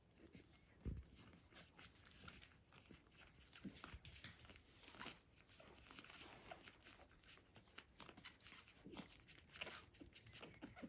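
Faint, irregular wet clicking and smacking of newborn puppies suckling at their mother. There is one soft low thump about a second in.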